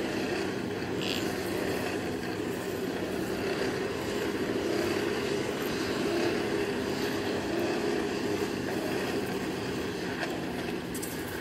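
Blacksmith's forge blower running steadily: a continuous rushing noise with a low hum underneath.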